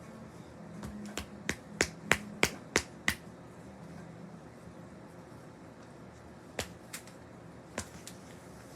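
A run of sharp clicks or snaps: seven in quick succession, about three a second, then four more spaced out later.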